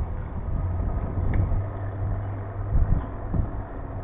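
A steady low engine hum over a low rumble, with a couple of soft thumps near the end.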